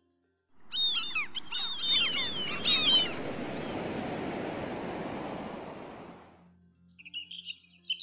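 A flurry of high, quick bird chirps over a steady rush of sea surf. The chirps stop about three seconds in, the surf fades out a few seconds later, and fresh chirping starts near the end.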